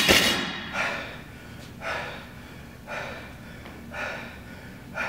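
Heavy breathing from a lifter recovering between power snatches: a hard breath about once a second. At the start, the clatter of the barbell just dropped on the wooden floor dies away.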